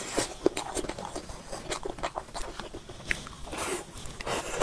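Close-miked mouth sounds of a person eating a soft jelly dessert from a spoon: wet chewing and smacking, with many small clicks.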